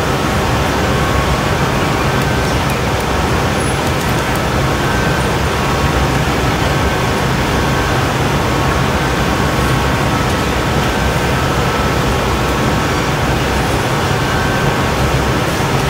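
Steady roar of a glassblowing hot shop's gas-fired burners and ventilation.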